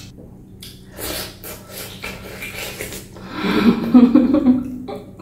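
Close-up eating sounds of a woman chewing pork trotter and noodles: wet smacks and clicks of the mouth. From about three and a half seconds in comes a loud, drawn-out hummed "mmm" of enjoyment that bends in pitch.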